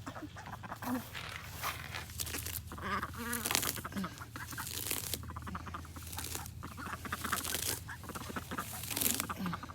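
Farmyard poultry giving short calls several times, over bursts of rustling.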